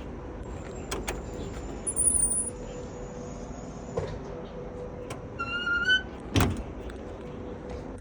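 Steady mechanical hum with a few sharp clicks; about five and a half seconds in, a short squeak rising slightly in pitch, then a heavy thud like a metal door being shut.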